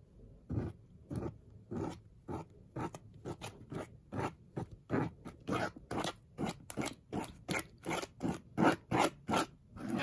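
Silicone spatula scraping and squishing a thick toothpaste-and-salt slime against a plastic cutting board in repeated short strokes. The strokes quicken from under two a second to about three a second and are loudest near the end.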